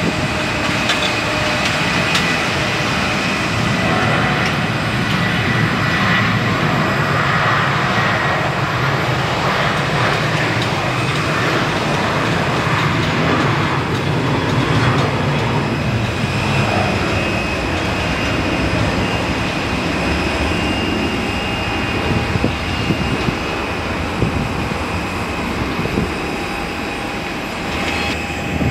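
Boeing 737 airliner jet engines running at taxi power: a steady rumble with a high whine over it.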